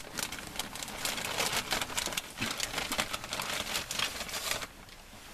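Close rustling and crinkling with many small clicks and taps, as of a leather jacket moving and hands handling things. It dies down about four and a half seconds in.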